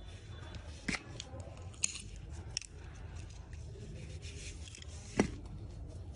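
Spring-loaded thread snips cutting cotton yarn and being handled: a few short, sharp clicks, with the loudest one about five seconds in.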